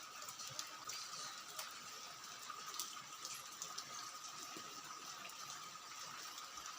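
Steady heavy rain: an even hiss with scattered sharp drip clicks, and a faint steady high tone beneath it.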